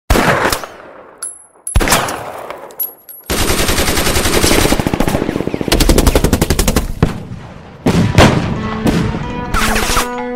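Battle sounds of gunfire and explosions: two blasts with long rolling tails, then a few seconds of rapid automatic gunfire, then more blasts. Near the end, held musical tones come in.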